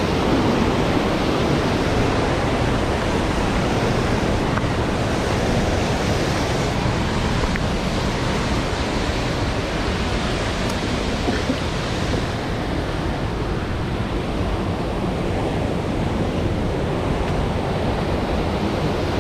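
Mountain stream rushing steadily over boulders and small cascades. The hiss of the water is slightly duller in the second half.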